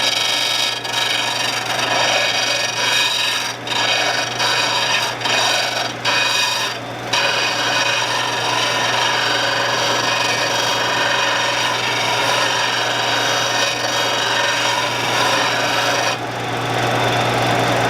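Power grinder running with a steady motor hum as the steel edge of a roughing gouge is held against the abrasive, a continuous grinding rasp that breaks off briefly a few times in the first seven seconds as the tool is lifted and reset. The bevel is being ground down toward the tip.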